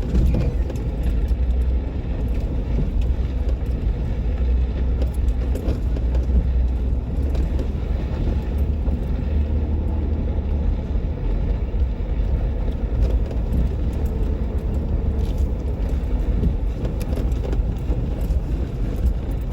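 Jeep Wrangler driving on a dirt trail: a steady low rumble of engine and tyres that stays even throughout.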